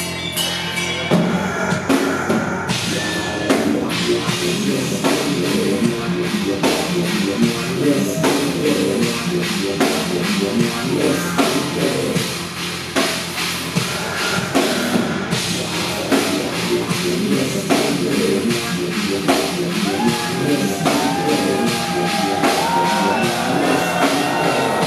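Industrial metal band playing live: a driving drum kit with steady, rapid hits under distorted guitars and keyboards.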